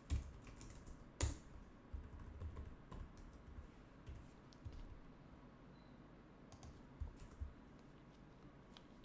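Computer keyboard typing: scattered keystroke clicks in short runs, thinning out in the second half.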